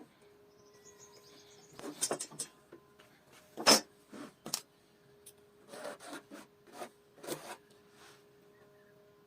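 Short, irregular scraping and rubbing strokes on wood, about ten of them in uneven groups, over a faint steady hum.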